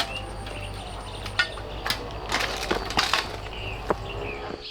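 Irregular clinks and knocks, as of hard objects being handled or set down, most frequent about halfway through, over a steady low hum. Faint bird chirps are heard behind them.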